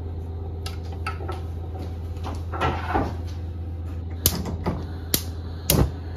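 A utensil tapping and scraping against a hot frying pan as sautéed mushrooms and garlic in butter are stirred: a string of sharp taps at uneven intervals over a steady low hum.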